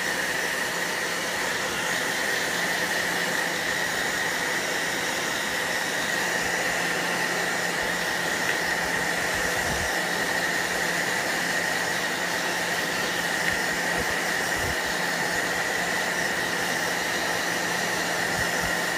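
Handheld hair dryer running steadily: a rush of air with a steady high whine in it.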